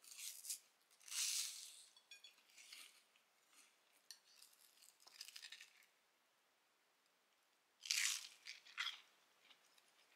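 Crunchy food being bitten and chewed close up: several crisp crunches with pauses between them, the loudest about eight seconds in.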